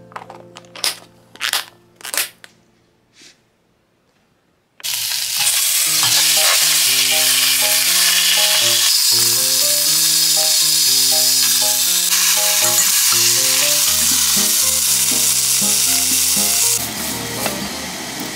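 Clip-lock lid of a plastic lunch box snapping shut: four sharp clicks. Then a pork hind-leg cut searing with garlic in a steel pot, a loud steady sizzle that drops off near the end.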